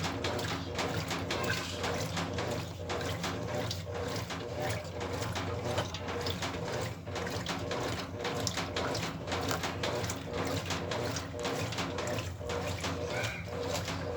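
Brastemp Ative 9 kg washing machine washing a load: water sloshing and splashing in the tub over a steady motor hum.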